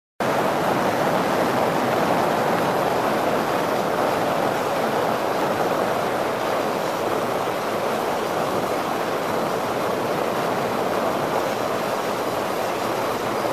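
Steady rushing noise of a 7 m RIB under way at speed, its run through the water and the wind over the boat blending into one even roar.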